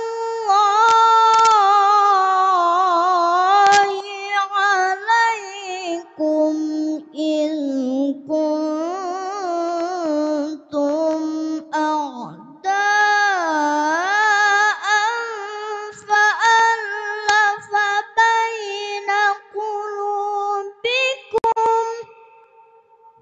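A young boy reciting the Quran in the melodic tilawah style, holding long ornamented phrases that waver and glide in pitch, with short breaths between them, amplified through a microphone. His voice stops about a second before the end, leaving a faint ringing tone.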